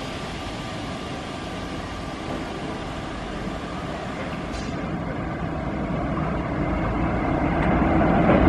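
Electric-locomotive-hauled passenger train approaching along the track, its running rumble growing steadily louder as it nears.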